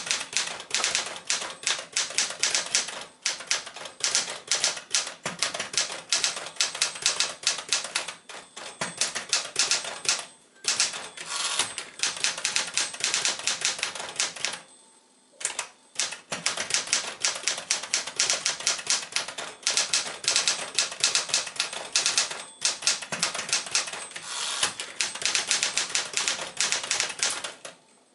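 Manual typewriter, a JCPenney Caravelle 12 (a rebadged Smith-Corona Galaxie 12), being typed on: a fast, steady run of sharp keystroke clacks, with a short break near the middle and a pause of about a second a little after.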